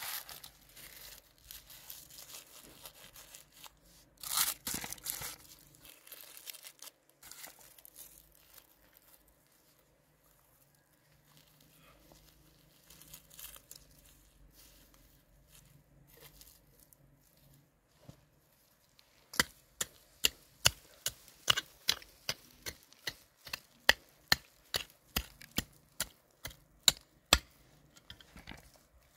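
Hands planting onion sets in stony garden soil: rustling with a short tearing sound a few seconds in, then, about two-thirds of the way through, a run of sharp, uneven clicks and taps, about two to three a second, as the fingers press and poke the soil.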